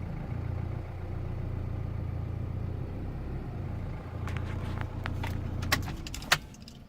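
2016 Chevrolet Colorado's 2.8-litre Duramax four-cylinder turbodiesel idling with a rough, surging idle; the rumble dips briefly about four seconds in. In the last few seconds a string of clicks and knocks comes in, two of them sharp, and the engine sound falls away near the end.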